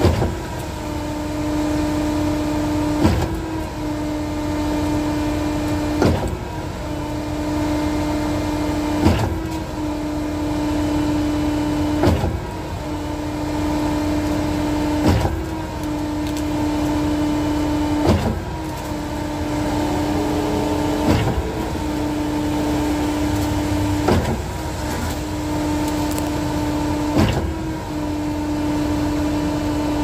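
Truck-mounted concrete pump running: a steady hydraulic hum broken by a sharp knock about every three seconds as the pump strokes and its valve shifts between cylinders.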